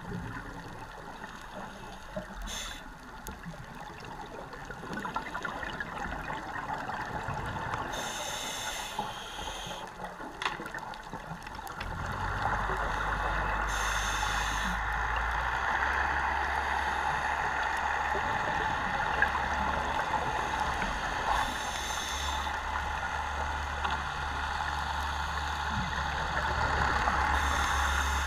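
Underwater sound of a scuba diver breathing through a regulator: a short burst of hiss and bubbles about every six seconds over a steady rush of water, which gets louder about twelve seconds in.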